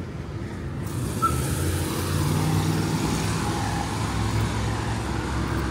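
A motor vehicle driving past on a city street. Engine and tyre noise build about a second in and are loudest in the middle.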